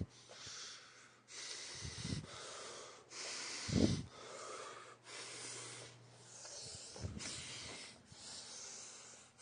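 A man breathing heavily and close to the microphone, one hissing breath after another, about one a second.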